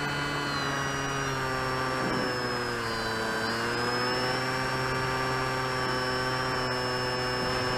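Radio-controlled model aircraft's motor and propeller droning steadily, heard from a camera mounted on the plane, with a brief dip and recovery in pitch a couple of seconds in as the throttle is eased.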